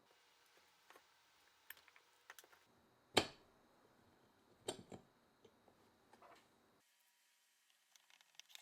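Scattered light clicks and knocks of small parts being handled, the sharpest about three seconds in and two more close together near five seconds.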